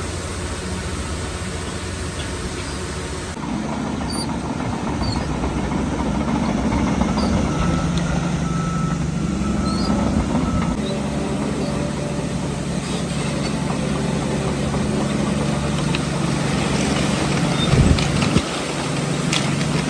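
Heavy diesel engines of earthmoving machinery running and shifting pitch under load, with a few short high beeps partway through and a couple of loud knocks near the end.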